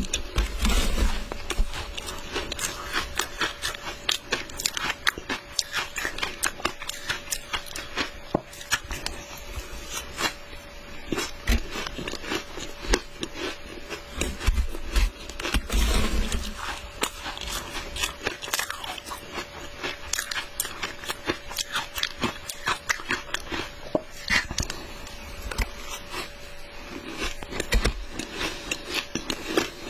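Shaved ice dusted with matcha powder being bitten and chewed up close, with dense, irregular crunching, while a spoon scrapes and scoops through the ice in the dish.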